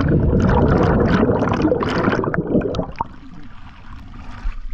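Rush of bubbles and churning water heard through a submerged camera as a diver goes in, easing off about three seconds in to quieter water sloshing at the surface.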